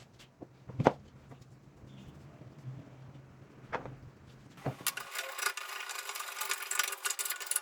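A few sharp knocks of wood against wood, the loudest about a second in and two lighter ones near the middle. Then, from about five seconds in, a rapid dense clicking and scraping.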